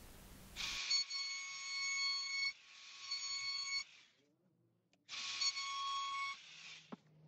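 A trim router with a flush-trim bit runs at speed with a steady, high-pitched whine, trimming a hard maple edge strip flush with a plywood shelf. The whine lasts about three seconds, breaks off into a moment of dead silence, then runs again for about a second and a half. A single knock comes near the end.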